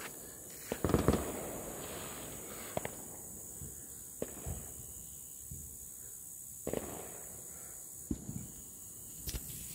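Firecrackers going off: a handful of scattered pops and thumps, the strongest about a second in, over a faint steady background.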